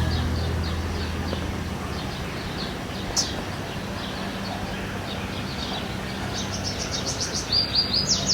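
Small birds chirping outdoors in short, repeated high chirps, with a faster, louder run of chirps near the end. The tail of the guitar music bed fades away in the first second or so.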